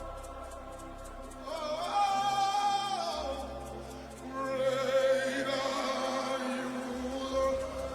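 Slow live worship music: held keyboard chords with bass, and a voice singing two long notes with vibrato, the first about one and a half seconds in, the second from about the middle.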